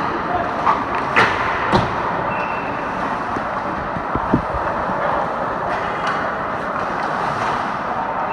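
Ice hockey practice on a rink: a steady noise of skates on the ice, with a few sharp clacks of pucks and sticks, mostly in the first two seconds and one more near the middle.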